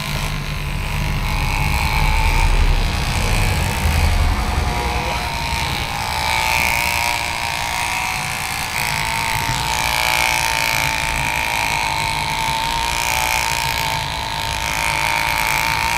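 Handheld electric head massager running against the scalp: a steady motor whine over a low vibrating buzz, the buzz easing after the first few seconds while the whine carries on.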